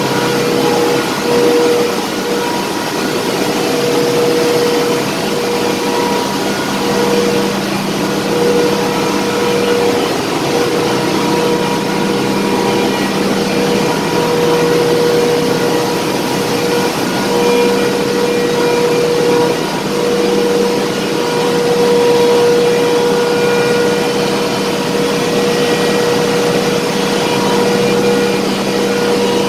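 Loud, steady machinery din of a tanker's engine room, with a constant hum holding a few fixed pitches.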